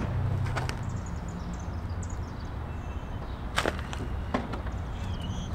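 Car hood being unlatched and lifted open: a sharp click about three and a half seconds in and a lighter one soon after, over a steady low outdoor rumble.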